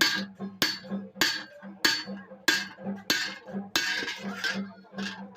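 Hand hammer striking scrap iron on an anvil in a steady rhythm, about nine blows a little over half a second apart, each with a short metallic ring.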